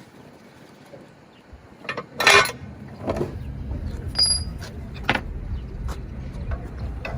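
Clinks and knocks of hand tools and metal parts during car suspension work, with one short, loud rasping burst a little over two seconds in and a brief high metallic ring near four seconds. A low steady rumble comes in about three seconds in.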